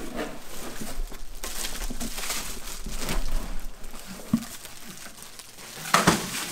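Packaging being handled: rustling and scraping as boxes and packing material are shifted by hand, with a knock about four seconds in and a louder bump near the end.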